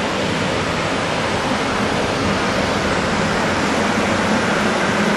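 Steady rushing noise of a passenger train standing at the platform, its ventilation and air-conditioning units running, with a faint low hum underneath.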